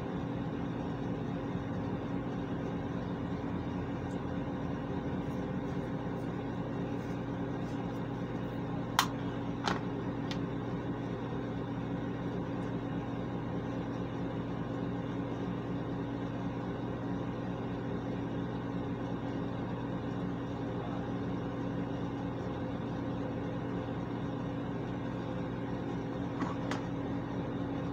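Steady hum of a bathroom exhaust fan, with a few light clicks about nine to ten seconds in and again near the end.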